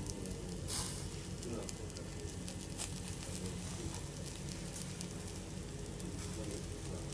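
Skewered meat sizzling over hot charcoal, with scattered sharp pops and crackles from the coals, over a steady low hum.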